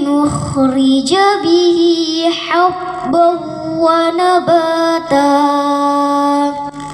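A girl reciting the Quran from memory in a melodic chant, amplified through a microphone, holding long steady notes with short breaths between phrases and stopping shortly before the end.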